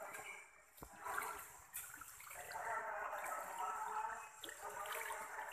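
Shallow river water sloshing and trickling around wading legs and a boat hull.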